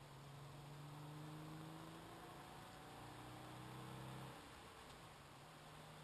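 Faint low hum of the car's engine while driving, with a slowly rising pitch that drops away about four seconds in.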